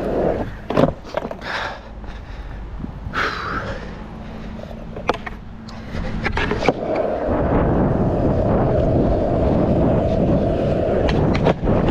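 Skateboard in use for a frontside pop shove-it: sharp clacks of the board's tail and deck hitting the ground, about a second in and again near five and seven seconds, with the wheels rolling. The wheels roll steadily through the second half.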